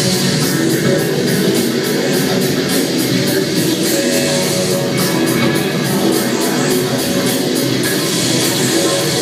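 Loud rock music with guitar and a fast, steady beat.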